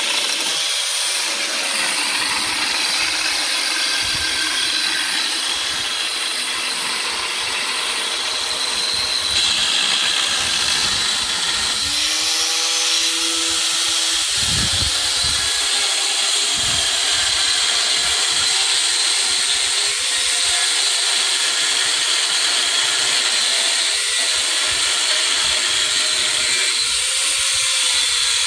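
Angle grinder with a cutting disc slicing through a rusty steel plate: a steady high-pitched whine and hiss, the motor's pitch wavering as the disc bites, growing louder about nine seconds in.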